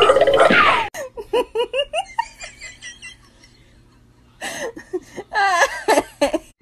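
A young woman laughing in a run of quick repeated bursts that fade away, then laughing again after a short pause. It opens with about a second of loud music that cuts off abruptly.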